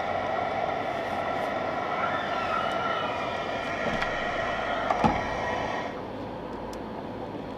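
Boat's outboard motor running steadily, with a thud about five seconds in. The motor cuts out about six seconds in, leaving a quieter hiss.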